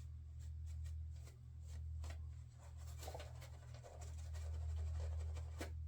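Razor blade scraping across lathered stubble: a run of short, irregular scratchy strokes, thickest in the second half, over a steady low hum.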